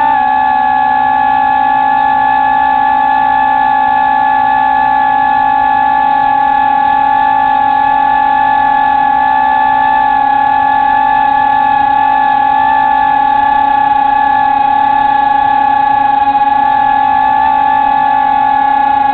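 Steady high-pitched whine of a small multirotor drone's electric motors and 5-inch propellers while it hovers, picked up by the action camera on board. The pitch holds nearly constant.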